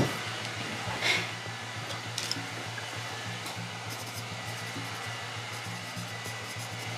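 Quiet sustained background music under a steady hiss, with a brief soft knock about a second in.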